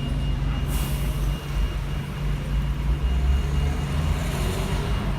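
Steady low rumble of street traffic, with a brief rise of hiss about a second in.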